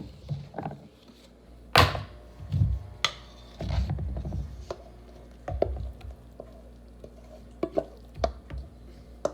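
A utensil knocking and scraping against a bowl as thick dip is spooned into it, with a loud clack about two seconds in and a series of lighter taps after.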